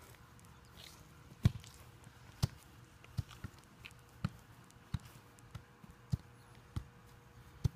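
Soccer ball being juggled: about a dozen hollow thumps as it is kicked and kneed, at an uneven pace of roughly one every half second or so. The first two touches are the loudest.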